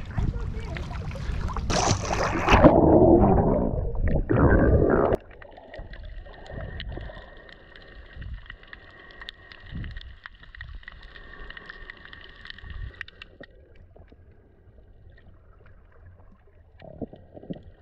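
Water splashing and rushing at the surface as a snorkeler goes under. About five seconds in, it cuts suddenly to muffled underwater sound with faint clicking and crackling.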